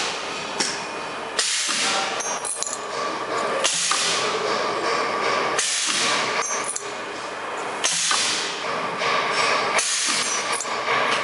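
Dental bur packaging machine running through its cycle about once every two seconds. Each cycle opens with a burst of hissing noise over a steady mechanical running sound.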